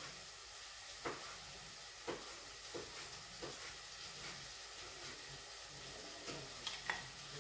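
Metal spoon scraping and tapping in a glass bowl of red fruit sauce as the sauce is spooned out, giving faint soft clicks about once a second.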